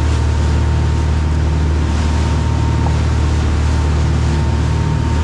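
Dive boat's engines running steadily underway, a loud, even low drone, with the rush of the wake and wind over it.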